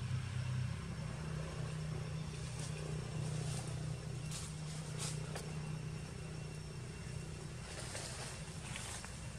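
A steady low mechanical hum, like an engine running, with a few faint clicks scattered through it.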